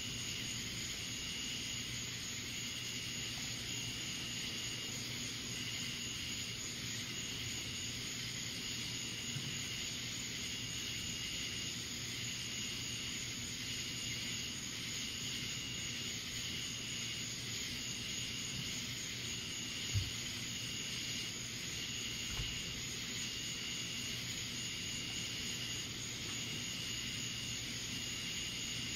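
Steady outdoor hiss with night insects calling: a high chirping pulse repeats about every one and a half seconds. A single brief low thump comes about twenty seconds in.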